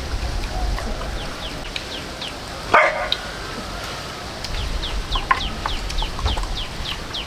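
Chickens: a run of high, falling peeps, about two or three a second, with one short, loud call about three seconds in.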